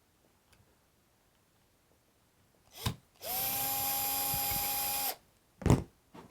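Power screwdriver running steadily for about two seconds, backing out the small screw that holds the deadbolt's cylinder. A knock comes just before it and another just after.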